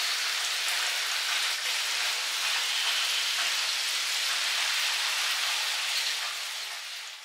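A shower head spraying water onto potted houseplants in a bathtub: a steady hiss of falling water that fades out near the end.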